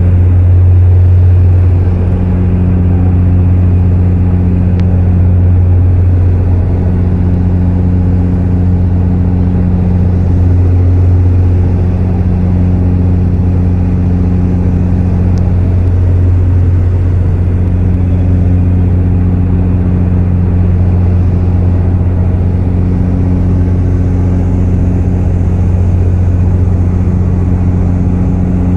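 Propeller aircraft's engines heard from inside the cabin in flight: a steady, loud low drone with a slow waxing and waning in its hum.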